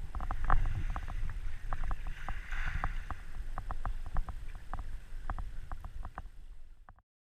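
Water movement with a steady low rumble and many irregular sharp clicks, fading out near the end.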